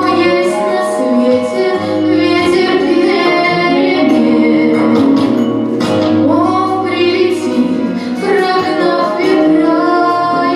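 A song sung by a woman's voice over instrumental backing, with long held notes.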